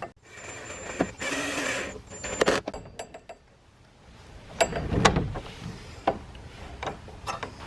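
Scattered clicks and knocks from a handle being fitted to a plastic shed door, with a short stretch of scraping about a second in.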